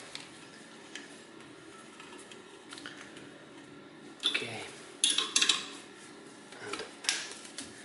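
Metal clinks and scrapes of a wrench turning a bolt threaded into a rusted rear brake drum, the bolt used to press the seized drum off the hub. After a quiet start, sharp clatters come about four seconds in, in a cluster around five seconds, and again near the end.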